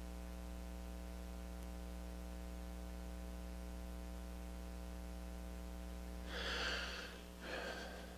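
Steady mains hum with a ladder of overtones, and two short breaths near the end.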